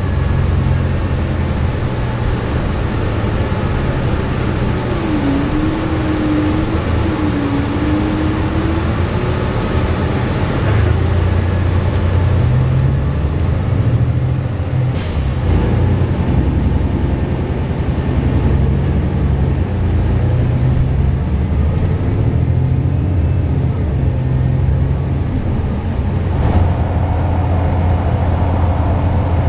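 Inside a New Flyer Xcelsior articulated bus at highway speed: a steady low engine drone with road noise. A brief sharp hiss comes about halfway through, and a higher steady tone joins near the end.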